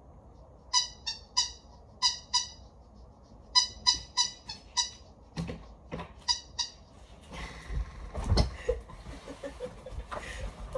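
A dog's squeaky toy squeaking in quick runs of two to five squeaks. About seven seconds in comes a stretch of rustling bedding with one heavy thump.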